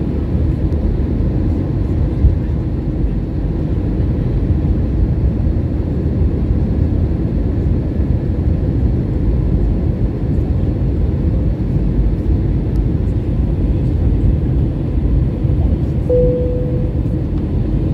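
Steady rumble of an Airbus A320's engines and airflow heard inside the cabin during the approach for landing. A short tone sounds about sixteen seconds in and fades away.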